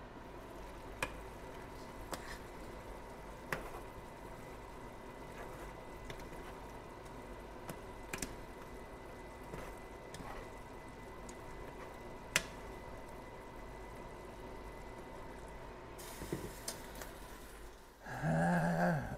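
Chicken adobo simmering in a pan with a steady bubbling hiss, the sauce still soupy, while a utensil and pot lid give a few single sharp clicks against the cookware. About a second before the end, a short voiced hum.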